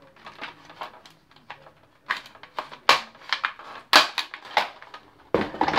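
Hard plastic Nerf blaster parts clicking and knocking as they are handled: a string of separate sharp clicks, the loudest about four seconds in, with a busier cluster near the end.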